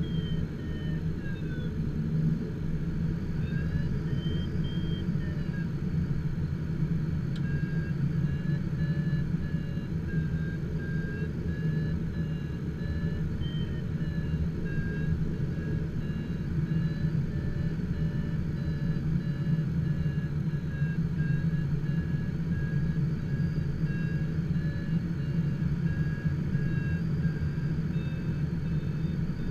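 Glider variometer's audio tone beeping over and over, its pitch sliding up and down at times with the rate of climb, over a steady low rumble in the cockpit of an HK-36 Super Dimona motor glider.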